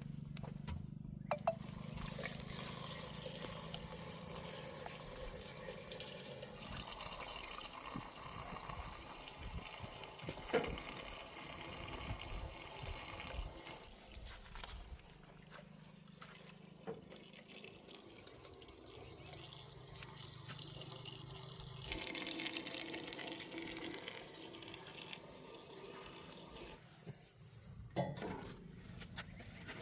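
Water splashing and running, with a steady low hum underneath at times.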